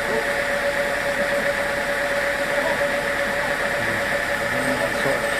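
Sawmill machinery running steadily: a constant mechanical hum with a fixed whine held over it.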